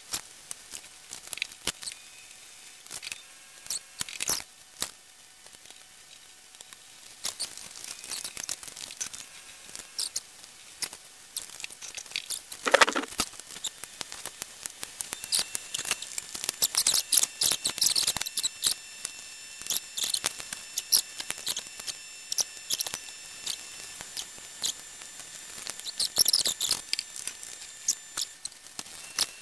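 Small clicks, taps and scrapes of hand tools and metal parts as the electrical control box on a Hardinge HC chucker lathe is worked on and its cover opened, with one longer, louder scrape about thirteen seconds in.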